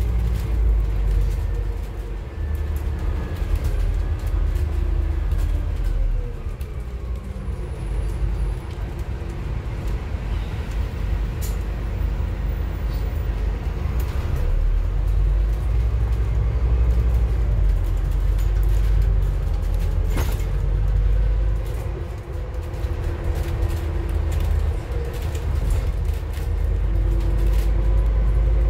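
Scania N280UD CNG bus on the move, heard from inside the passenger cabin: a heavy low engine and road rumble, with a drivetrain whine that rises and falls in pitch as the bus gathers and loses speed. There are a couple of sharp knocks from the body about a third and two thirds of the way through.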